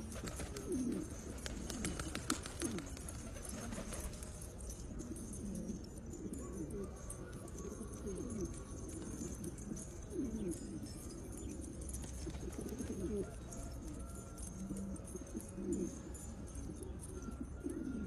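A flock of domestic pigeons cooing, many low, falling coos overlapping throughout. A quick run of light taps comes in the first few seconds.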